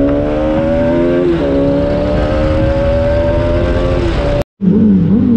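Bajaj Pulsar RS200's single-cylinder engine pulling under acceleration, its pitch rising steadily, dropping once at a gear change about a second in, then climbing again, over a rush of wind. The sound cuts out briefly near the end.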